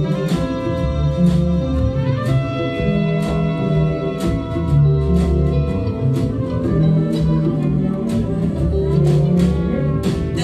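Live band playing an instrumental passage: drums and congas keep a steady beat under bass, guitar and long held trumpet notes.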